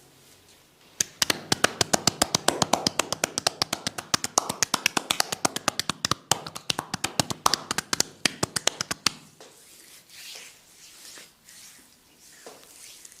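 Massage tapotement: hands rapidly tapping and slapping on the client's head or body at about nine strokes a second, starting about a second in and stopping abruptly about nine seconds in.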